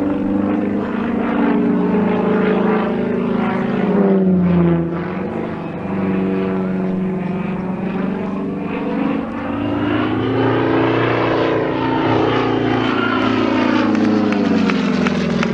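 Sukhoi Su-26M aerobatic plane's nine-cylinder radial engine and propeller running hard through manoeuvres overhead. The pitch drops about four seconds in, climbs again around ten seconds and falls away after, as the plane changes power and passes by.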